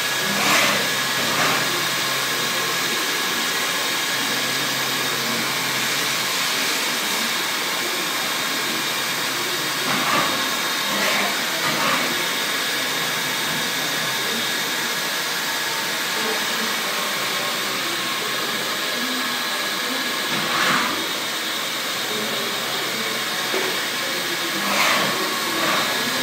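Heller BHZ 07 CNC machining centre running: a steady hiss with a faint whine. Several times it swells briefly into a short falling-then-rising whir as the spindle head moves.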